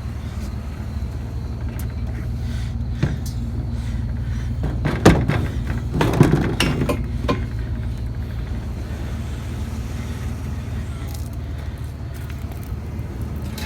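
Vehicle engine idling with a steady low rumble. A few knocks and a short clatter come about five to seven seconds in as a metal weight-bench part is handled.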